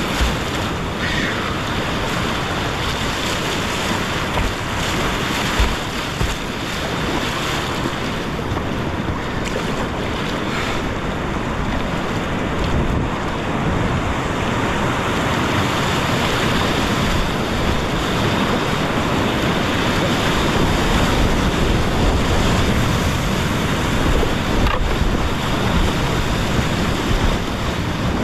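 Steady rush of whitewater on a steep creek, with a low rumble of water and air buffeting the microphone.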